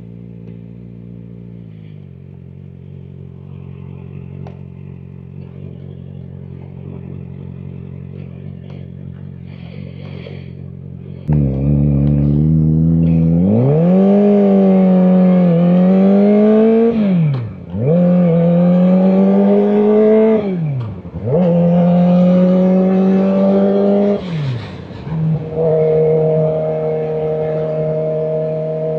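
Kawasaki Ninja ZX-4RR's 399 cc inline-four engine idling, then pulling away about eleven seconds in. It accelerates hard through the gears, with a rising pitch broken by quick upshifts, and settles into a steady cruise near the end.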